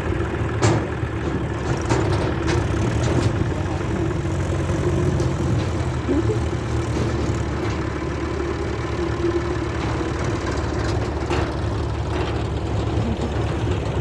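Heavy diesel engine of earth-moving machinery running steadily at an even speed, with a few sharp knocks now and then.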